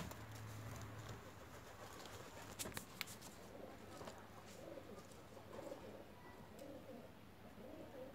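Faint, repeated cooing of a dove through the second half, with a few sharp clicks just before it starts.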